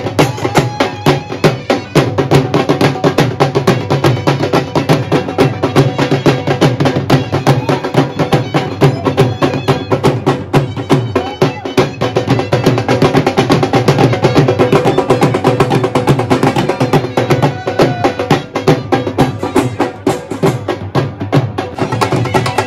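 Two dhols, Punjabi double-headed barrel drums, beaten with sticks in a fast, loud bhangra rhythm of dense strokes.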